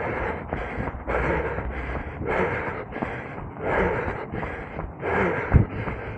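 A runner breathing hard and fast, with a heavy gasping breath about every second and a quarter and smaller ones between. One sharp thump comes near the end.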